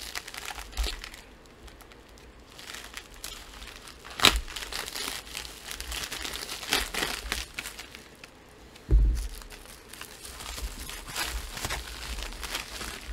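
White padded plastic mailer being handled and torn open by hand: irregular crinkling and tearing of the plastic, with a sharp crackle about four seconds in and a thump about nine seconds in.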